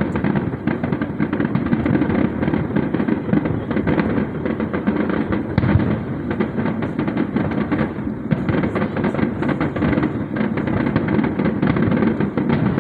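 Fireworks display: a dense, unbroken barrage of bangs and crackles, loud throughout.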